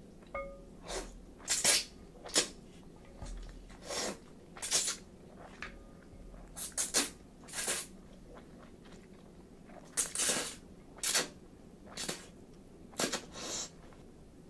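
Chilled ramen noodles slurped in about a dozen short, loud slurps, with chewing in the quieter gaps between.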